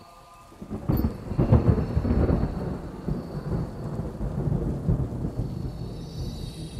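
Thunder: a sudden crack about a second in, then a long low rumble that slowly fades.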